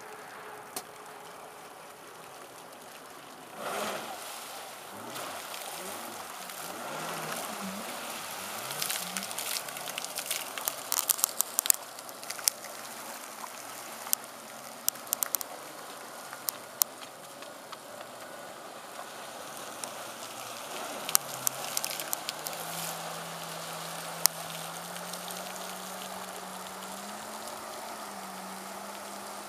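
Jet ski engine pulling away and speeding up, its pitch climbing in steps and then holding steady and higher for the last several seconds, over a hiss of churned water. Sharp crackles come and go through the middle.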